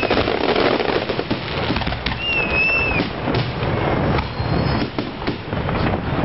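Aerial fireworks display: a dense, continuous run of shell bursts and crackling reports, with a short wavering whistle about two seconds in.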